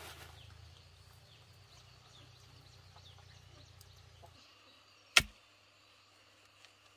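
Outdoor ambience with faint bird chirps and a low hum that stops about four seconds in, then a single sharp knock about a second later.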